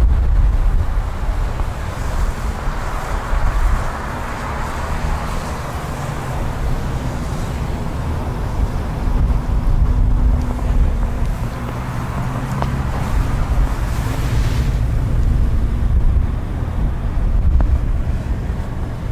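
2016 Mercedes-Benz GLC250 4Matic's turbocharged 2.0-litre four-cylinder petrol engine idling steadily, heard from behind the car at its exhaust, with wind buffeting the microphone.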